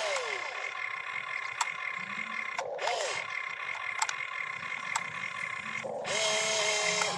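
Electric motors of a toy RC excavator whining as the boom and bucket move. Each run rises in pitch, holds, then falls away, over a steady high hum, with a few sharp clicks.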